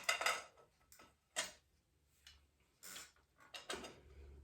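Scattered light metallic clicks and taps from a bottom bracket wrench working a Shimano external bottom bracket cup: a quick cluster at first, single clicks about a second and a half and three seconds in, and a few more near the end.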